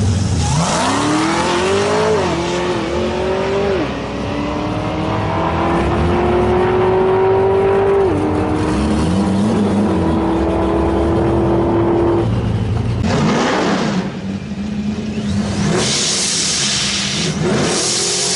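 Cadillac CTS-V sedan's V8 at full throttle on a drag-strip launch, its pitch climbing and dropping back at three upshifts as the car pulls away and fades. In the last few seconds comes a loud rushing hiss of spinning tyres from a Chevrolet Camaro's burnout.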